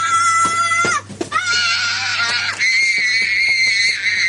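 A small boy screaming in a tantrum: two long, high-pitched held screams, the second starting just after a second in and lasting to the end.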